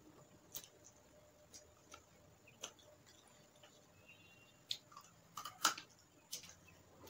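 Sparse, quiet mouth clicks and smacks of a person eating chicken and rice with the fingers off a banana leaf, with a cluster of sharper clicks about five and a half seconds in.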